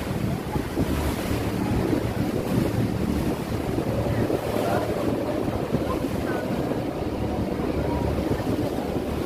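Steady wind buffeting the microphone on the open deck of a moving river cruise boat, over the boat's engine and the rush of water along the hull.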